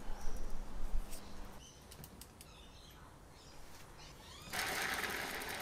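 Gloved hands handling a metal training-wheel bracket on a bicycle fork: light clicks and rustling. A steady rushing noise starts about four and a half seconds in.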